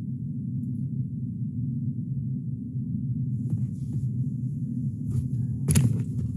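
Steady low hum in a car cabin, with a few faint clicks and one sharper knock near the end as the handheld scan tool is handled.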